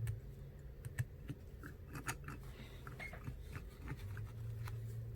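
Faint, scattered small clicks and taps of precision tools handling an opened iPhone X's metal frame and parts, over a low steady hum.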